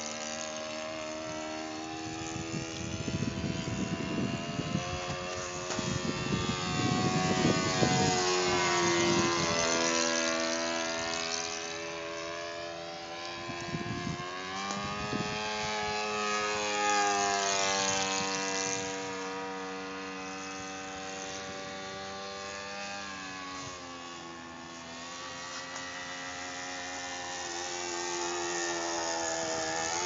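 Saito 82 four-stroke glow engine of a radio-controlled Super Decathlon model airplane running in flight, turning a 13x6 propeller at high revs. It is a steady buzzing note whose pitch steps down and back up several times, loudest about a third of the way in and again a little past halfway.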